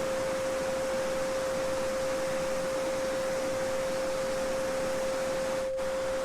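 A steady 528 Hz pure sine tone held over the even rush of a babbling brook. The water noise drops out for an instant about five and a half seconds in.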